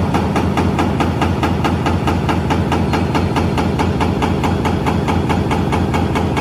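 Excavator-mounted breaker hammer chipping compacted glacial till, a rapid, even run of blows at about five a second, over the steady hum of the Cat excavator's diesel engine.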